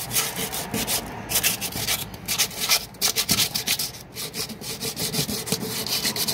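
Quick, irregular rubbing and scraping strokes of a hand and small tool against the bearing hub of a washing machine's plastic tub as the rubber oil seal over the new bearing is worked into place.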